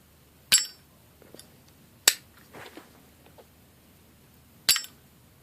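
Zippo lighter's hinged metal lid clicking open and shut, three sharp clicks about two seconds apart with a brief metallic ring on the first and last, and small handling clicks between.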